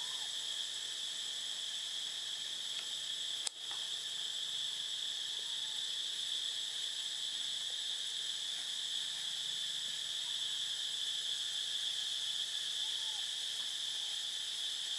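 Steady, high-pitched drone of a forest insect chorus, with one sharp click about three and a half seconds in.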